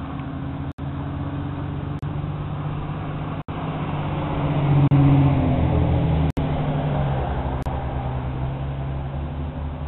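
A motor vehicle's engine running with a steady low hum, swelling louder about halfway through and then easing off. The sound cuts out for an instant a few times.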